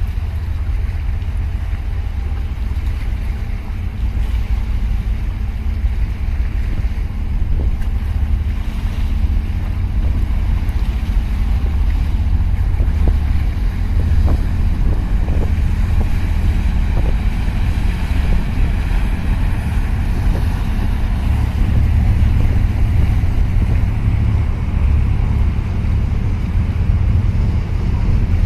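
Wind buffeting the microphone as a steady low rumble, over the hiss of water churned up by a large container ship passing close by. The hiss of the wash grows louder in the second half.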